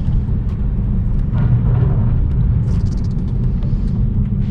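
Steady low rumble of engine and road noise inside a BMW 328i's cabin while driving.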